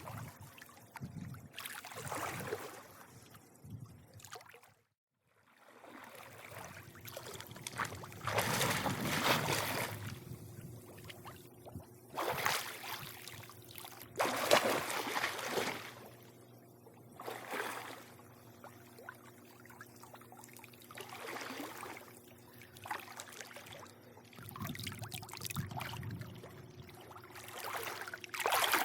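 Swimming pool water lapping and splashing in irregular swells every couple of seconds over a faint steady hum. The sound cuts out completely for a moment about five seconds in.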